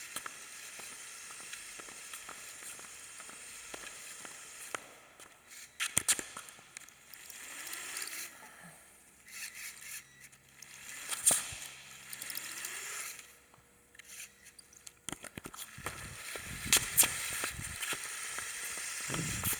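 Small radio-controlled Lego Technic car driving, its Lego electric drive motor and gears whirring in stretches that swell and fade as it speeds up and slows, with sharp clicks and knocks from the plastic parts and tyres.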